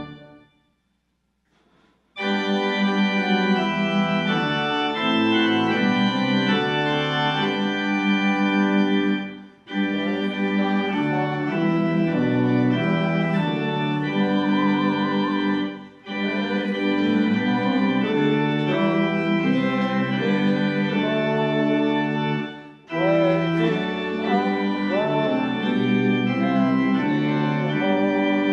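Two-manual church organ playing slow sustained chords in phrases, starting after a pause of about two seconds, with brief breaks between phrases.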